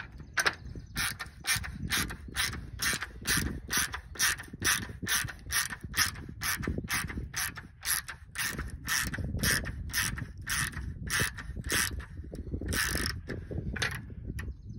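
Socket ratchet clicking steadily, about two to three clicks a second, as it backs a nut out of an RV awning arm's end cap. The clicks run into a quicker flurry shortly before the end.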